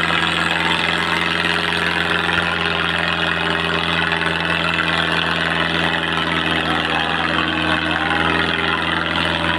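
Tractor diesel engine running steadily at constant revs under heavy load, pulling a weight.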